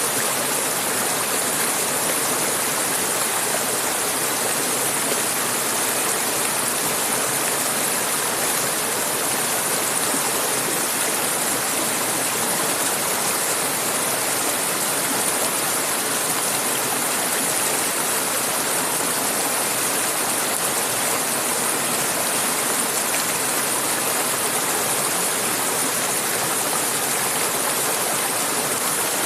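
Mountain river water flowing over rocks, a steady even rush with a bright hiss and no breaks.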